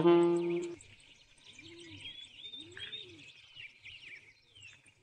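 Background music ends under a second in, leaving faint birdsong: small birds chirping, with two low cooing calls about a second apart.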